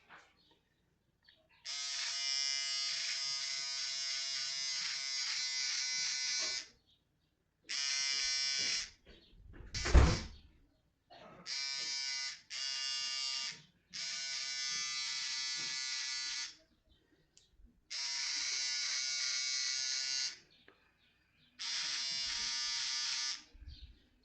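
Electric shaver buzzing in seven separate runs of one to five seconds, switching on and off, as it takes off a mustache. A single sharp knock about ten seconds in is the loudest sound.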